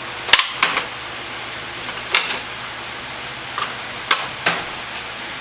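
Sharp metal clinks and taps, about five of them spread unevenly, from hand tools and steel parts being handled while a bench vise is taken apart.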